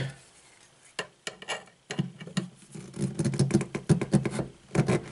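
Replacement single-handle faucet cartridge being pushed down and worked into the faucet body: a string of light clicks and knocks of plastic and metal parts, coming quickest from about three seconds in.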